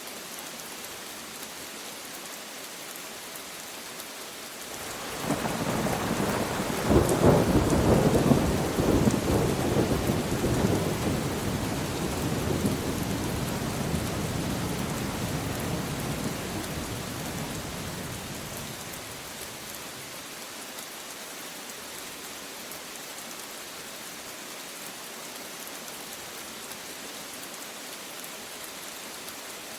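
Steady rain falling, with a long rolling thunderclap that swells up about five seconds in, peaks a few seconds later and rumbles away slowly over about ten seconds before the rain alone remains.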